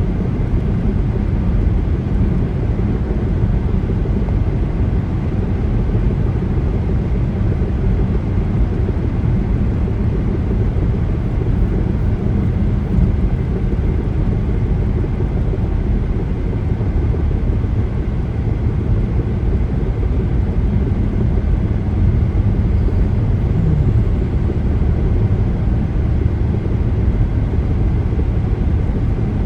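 Car driving at highway speed: steady road, tyre and engine noise, heavy in the low end.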